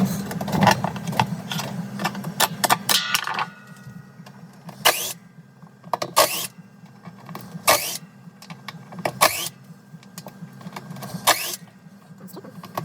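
Washing machine repair work: a steady hum with quick clattering for about the first three seconds, then a run of short, sharp tool strokes on the machine's parts, about one every second and a half.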